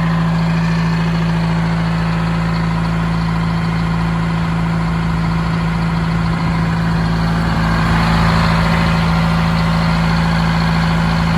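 1971 Insley excavator's diesel engine running steadily on twenty-year-old fuel from its own tank. About eight seconds in it grows a little louder and brighter.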